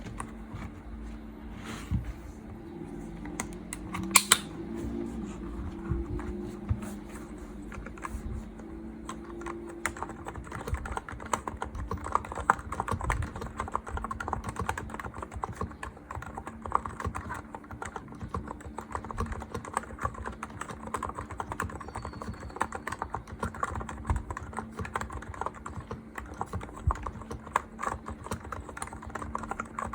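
Continuous typing on a Hansung GK868B electro-capacitive keyboard, many quick irregular key strokes, busier from about a third of the way in.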